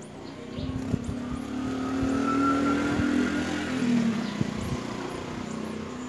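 A motor vehicle passing: an engine hum that swells over the first couple of seconds, peaks in the middle and fades toward the end, with a few sharp knocks along the way.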